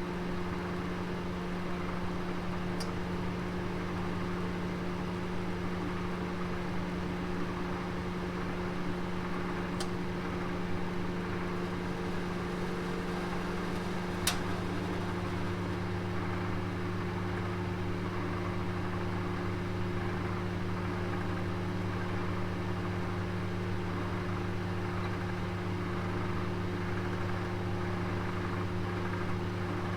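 Oven running with a steady, multi-tone electrical hum while a roast cooks inside; a lower hum joins about halfway through. Three faint ticks sound along the way.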